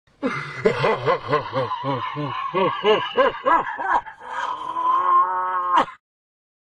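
Deep, laugh-like voice sound effect: a run of about a dozen short syllables, each swooping up and down in pitch at about three a second, then one long drawn-out note that rises and cuts off suddenly just before six seconds.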